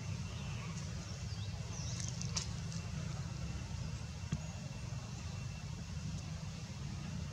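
Outdoor background: a steady low rumble, with a few faint high chirps about two seconds in and a single short click a little past the middle.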